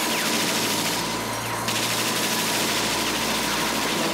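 Belt-fed .30-calibre machine gun firing in one long continuous burst of rapid automatic fire, as a film sound effect.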